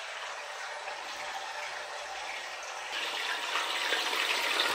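Pieces of paneer frying in hot oil in a pan: a steady sizzle and bubbling that grows louder about three seconds in.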